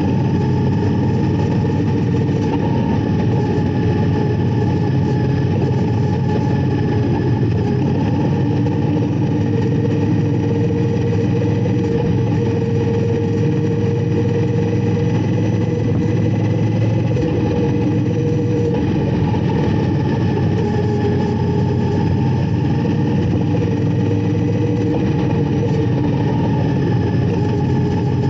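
Indian Scout Bobber's V-twin engine running at a steady cruise, its note holding nearly constant with only slight rises and falls in pitch.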